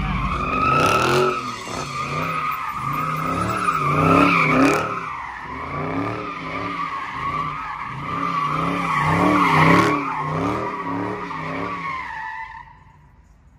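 Dodge Charger doing donuts: its tyres squeal in a steady high screech while the engine revs rise and fall over and over beneath it. Both stop about a second before the end.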